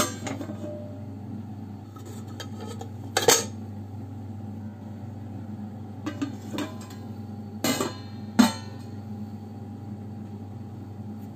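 Steel tongs clinking against a stainless steel plate and the rim of a pressure cooker: a sharp clink at the start, another about three seconds in, lighter taps around six seconds, and two more close together near eight seconds, over a steady low hum.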